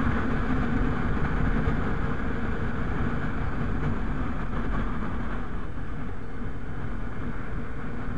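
Motorcycle engine running at a steady cruise with a low hum, under steady wind rush on the bike-mounted microphone.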